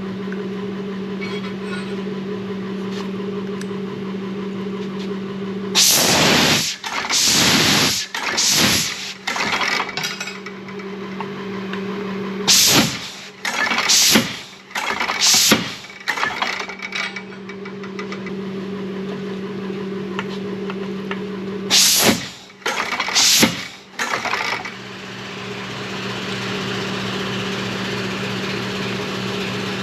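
A steady hum from shop machinery, broken three times by clusters of loud hissing, rasping bursts, each cluster lasting a few seconds.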